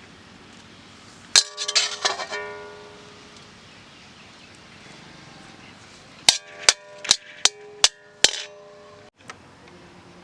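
A metal spoon or ladle clanging against a steel cooking vessel, each strike ringing on. A quick cluster of strikes comes about a second and a half in, then six sharp evenly spaced taps near the end, as when knocking food off a ladle onto a pan's rim.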